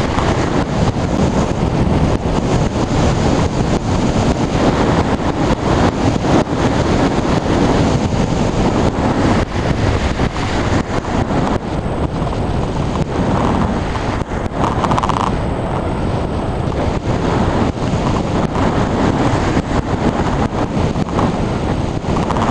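Wind from the hang glider's flight rushing over the microphone of a camera mounted on the glider: a steady, loud buffeting noise.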